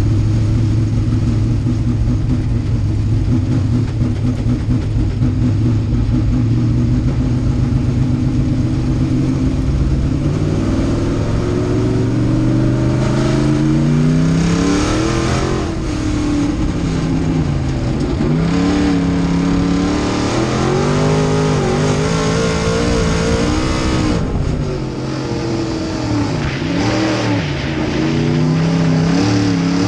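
Small-block V8 engine of a dirt-track modified race car, heard from inside the cockpit. It holds a steady note for about the first ten seconds, then rises and falls in pitch again and again as the throttle is opened and closed around the track.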